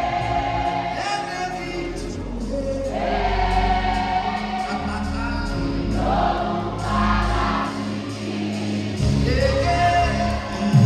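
Live gospel choir singing with a band, sustained sung lines over steady bass and keyboard accompaniment.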